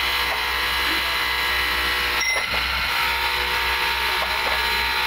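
Motor-driven abrasive wheel grinding the surface of a steel bearing outer ring, a steady high grinding whine over a low motor hum, as the ring is refinished for reuse. The grinding breaks off briefly a little after two seconds in, then carries on.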